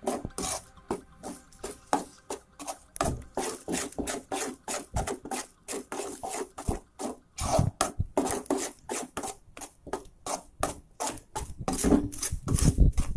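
Spatula scraping and stirring against the inside of an aluminium kadai, quick repeated strokes about four a second, as eggs are scrambled into fried okra.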